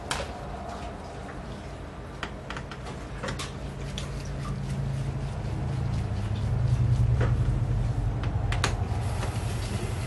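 Scattered light clicks and ticks of a small screwdriver and metal screws as screws are worked out of a laptop's screen frame. Under them a low hum swells from about halfway through and is loudest about two-thirds of the way in.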